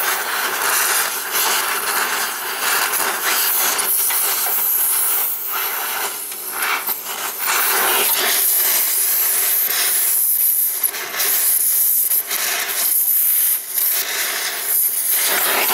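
Oxy-fuel torch flame hissing steadily as it heats rusted exhaust flange studs to break their rust bond, with a few brief dips as the flame is moved.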